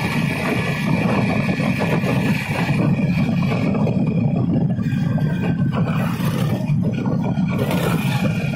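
Steady wind rush on the microphone and motorcycle running noise while riding along a road at speed.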